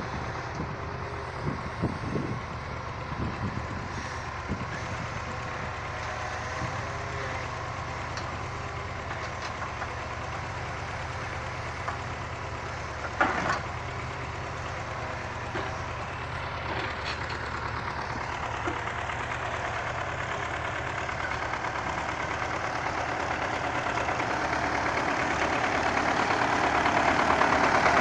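Heavy diesel engine running steadily, with a few sharp knocks, the loudest about halfway through. The engine grows louder over the last few seconds.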